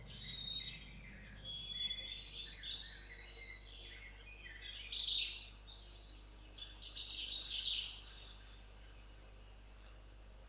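Birds calling and chirping: high whistled notes through the first few seconds, then bursts of chirping about five seconds and seven seconds in, fading to a faint background near the end.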